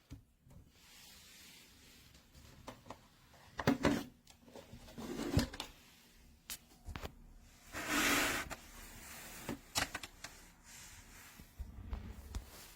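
Scattered clicks and light knocks from objects being handled, with a brief scrape about eight seconds in.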